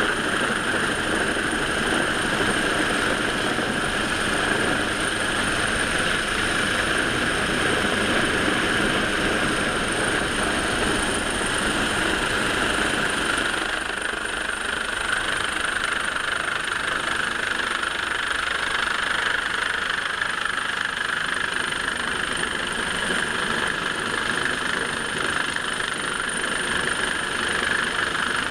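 HM Coastguard AgustaWestland AW139 helicopter hovering low overhead during a winch transfer: steady rotor and turbine noise with a constant high whine, easing slightly about halfway through.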